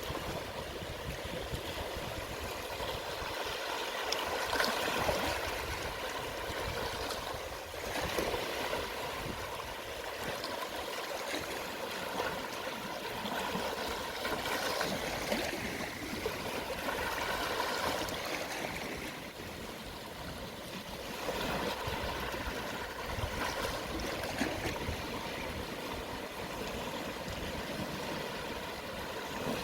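Gentle sea waves at low tide washing and trickling over the shore, swelling and easing every few seconds.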